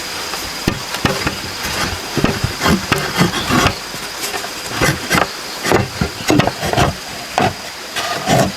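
Woodworking noise: a steady hiss with a faint high whine, broken by many irregular sharp knocks and scrapes.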